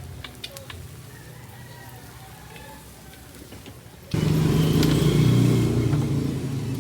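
A motor engine running, loud and steady, which cuts in suddenly about four seconds in after faint background voices and clicks.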